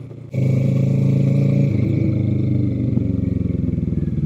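Motorcycle engine running at low revs, cutting in abruptly less than half a second in as a steady, loud drone. Its pitch steps down a little about a second and a half in.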